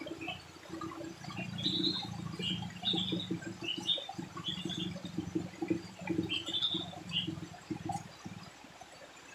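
Rustling and handling noise as a young bamboo stem is pulled over and tied with thread, full of small knocks, with short high chirps repeating over it. The rustling stops about eight seconds in.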